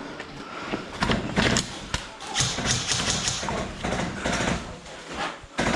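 Scattered sharp clicks, taps and thumps at uneven intervals, with a stretch of hiss about two and a half seconds in.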